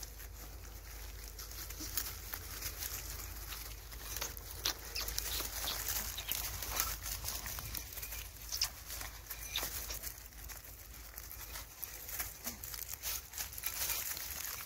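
Dry twigs and fallen leaves crackling and snapping under puppies rooting and scrambling through brush, an irregular run of short clicks and rustles.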